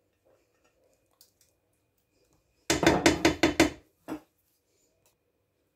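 A quick clatter of about six knocks, kitchenware against kitchenware, as the last of the marinade is knocked out of a glass baking dish into a steel pressure cooker. One more knock follows a moment later.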